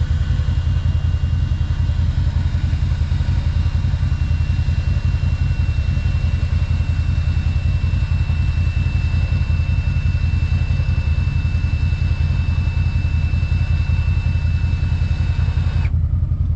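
ATV engine running steadily at idle, with a thin steady high whine from about four seconds in until near the end.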